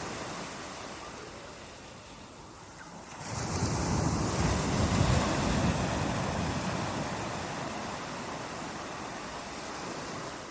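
Sea surf with rain: a steady wash of noise that sags, then swells sharply about three seconds in as a wave rolls in, and slowly eases off.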